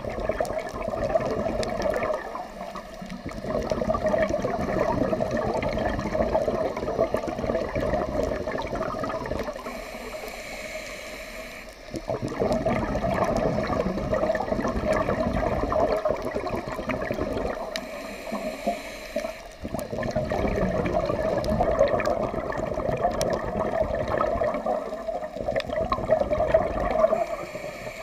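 Scuba diver breathing through a regulator underwater: long rushes of exhaled bubbles every six to eight seconds, each broken by a quieter inhale with a faint hiss.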